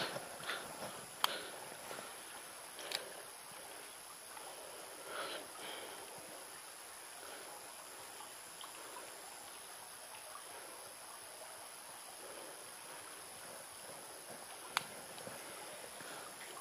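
Faint steady trickle and flow of a shallow river, with a few sharp clicks about a second in, about three seconds in, and near the end.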